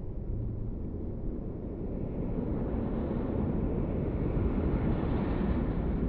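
Jet airliner passing low overhead, its engine rumble swelling to a peak near the end.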